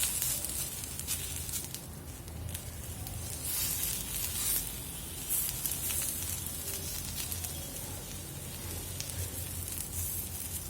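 Ajwain leaves sizzling on a hot, dry dosa tawa with scattered small crackles as they wilt in the heat.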